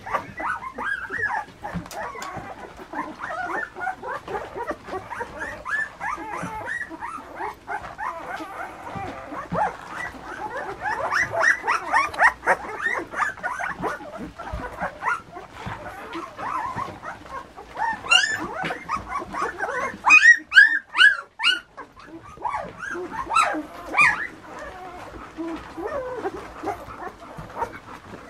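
Litter of two-week-old puppies squeaking and whining, many short high cries overlapping without a break. About two-thirds of the way in, a run of louder, shriller yelps.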